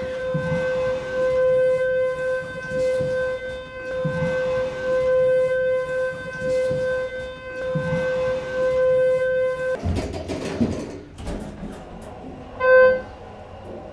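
A long, steady electronic-sounding tone on one held pitch, cut off suddenly about ten seconds in, followed by a short, loud blip of the same tone near the end.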